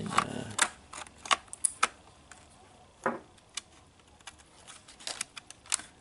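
A string of sharp, separate clicks and taps as a Crucial SO-DIMM memory stick is handled, slid into a Dell Precision M4500's RAM slot and pressed down into its retaining clips.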